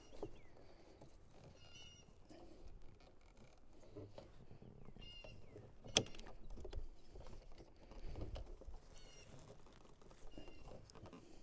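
Quiet handling of a wiring plug being pressed onto a new deck-lift rocker switch: soft rubbing and rustling, with one sharp click about six seconds in as the plug goes on.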